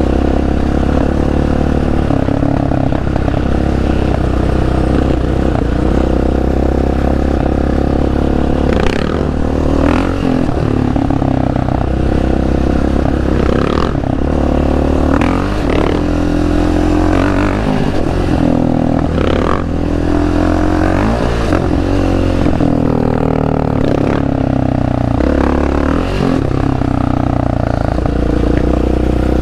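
A sport ATV engine running under way, its pitch stepping up and down as the rider works the throttle and gears, with scattered short clattering knocks over rough ground.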